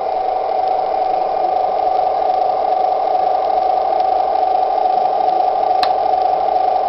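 Radio-controlled model tank running with a steady, even-pitched mechanical whir. One sharp click about six seconds in.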